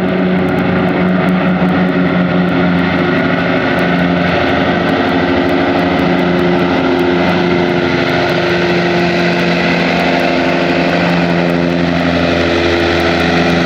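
Martin Mars flying boat's four radial engines and propellers droning steadily as it skims the lake, scooping up a load of water.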